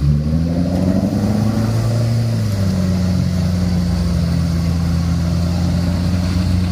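Four-wheel-drive engine working hard under load as it wades through deep river water towing a flooded vehicle, revving up over the first two seconds and then holding a steady pull.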